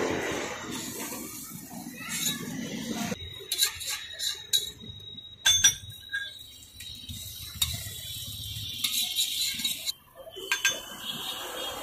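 Metal spatula scraping and clanking on a dosa tawa as a dosa is cut, rolled and the griddle scraped clean, with a run of sharp metallic clinks about four to six seconds in, one of them ringing briefly.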